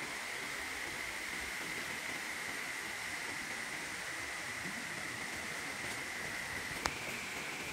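Mountain stream rushing steadily, with a steady high tone running through the water noise and a single sharp click near the end.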